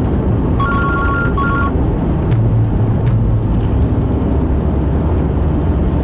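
A phone ringing briefly about half a second in, a two-tone electronic ring broken into two short bursts. Under it runs the steady low road noise of a car.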